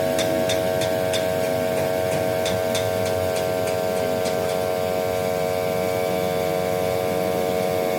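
A steady mechanical hum holding a few even tones, with a run of sharp clicks over the first three seconds or so.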